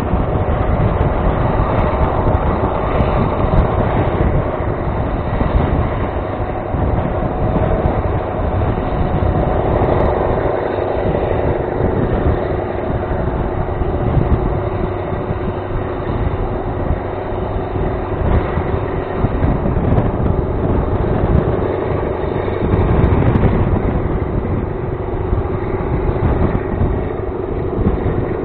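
Passenger train running along the track, heard from outside a coach window. Steady noise of the wheels and coaches, with wind fluttering over the microphone.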